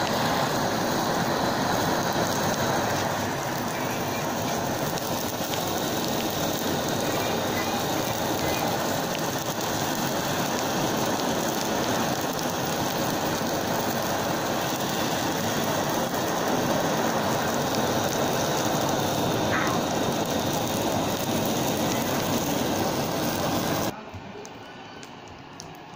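Two gas torches blowing steadily on burning plastic, a continuous even hiss that stops suddenly near the end.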